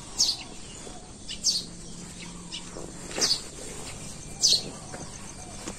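A bird calling repeatedly: four short, high notes, each falling in pitch, a second or so apart.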